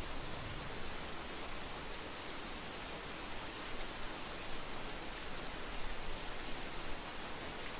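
Heavy rain falling steadily: an even, dense hiss of drops with occasional sharper single drop hits.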